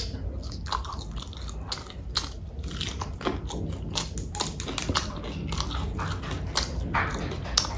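A person chewing and biting food close to the microphone: irregular wet clicks and crunches of eating.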